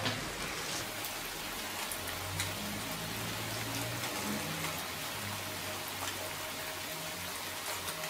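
Crab simmering and sizzling in tamarind sauce in a wok, a steady crackling hiss as the sauce reduces, with a few faint clicks as chopsticks turn the pieces.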